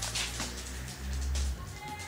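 Music playing, with a low bass line that shifts pitch a couple of times.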